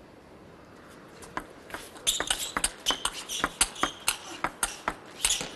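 Table tennis rally: the plastic ball clicks sharply off the rackets and the table in a rapid series, starting about a second in after a short quiet moment.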